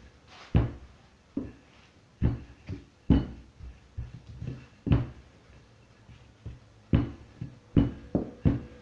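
Rolling pin knocking and thumping against the work surface as soft yeast dough is rolled out, in a string of short uneven thumps, one or two a second.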